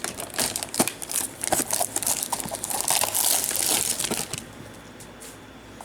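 Plastic shrink wrap being torn and crumpled off a trading-card blaster box: a crackly crinkling with sharp clicks for about four seconds, then dying down.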